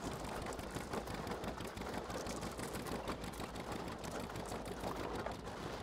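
Narrowboat's diesel engine running steadily while the boat is under way, a rapid even mechanical clatter over a low hum.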